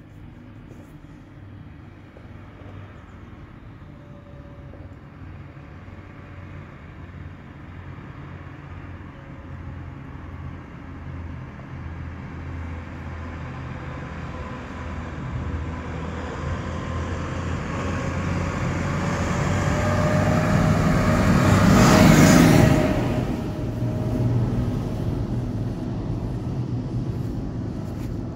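Tractor engine approaching along the road and growing steadily louder, then passing close by about three-quarters of the way through with a brief rush of tyre noise and a drop in engine pitch before fading.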